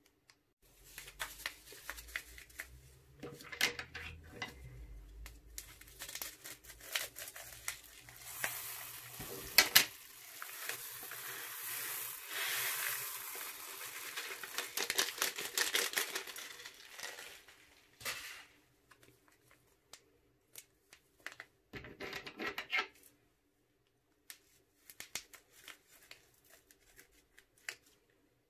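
Crunchy slime and plastic piping bags being handled and mixed, with crinkling plastic and crackling, sticky clicking. It is dense and continuous through the middle, then thins to scattered clicks and crinkles near the end.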